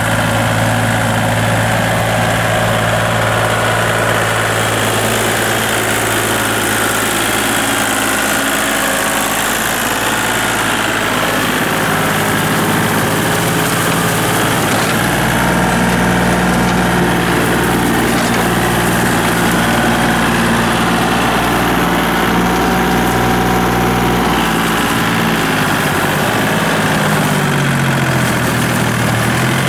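Compact Kubota tractor's diesel engine running steadily while it drives a rotary tiller through a wet rice paddy; the engine note shifts in pitch a few times, dipping and rising again near the end.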